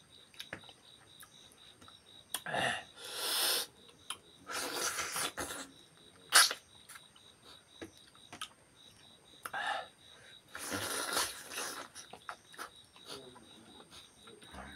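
Close-miked eating mouth sounds from people eating beef leg and rice by hand: three hissing sucking or slurping sounds of about a second each, with scattered smacking clicks, the sharpest about six seconds in.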